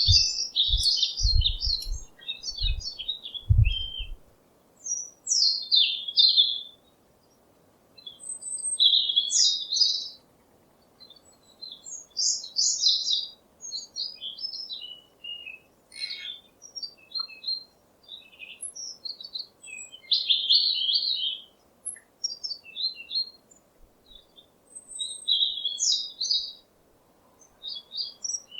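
Songbirds chirping in short phrases of quick high notes, one to three seconds apart with brief pauses between. A few low thumps in the first four seconds.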